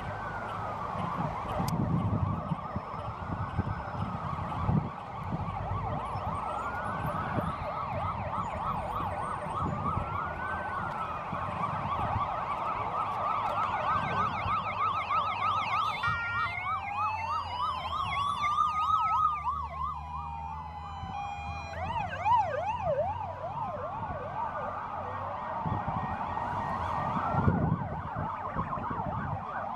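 Police car sirens sounding, switching between a slow rising-and-falling wail and a fast yelp. Around the middle a second siren overlaps for several seconds, with vehicle engine and road noise underneath.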